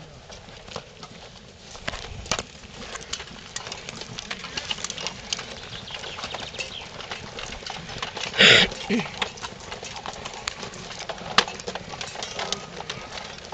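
Footsteps of a crowd walking on a paved road, many boots clopping close by, with one loud short burst about eight and a half seconds in.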